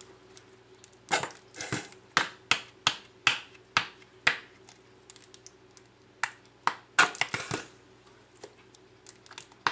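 Paprika shaker shaken hard upside down over a salad bowl, giving sharp knocks about two or three a second, with a pause in the middle and another burst about seven seconds in.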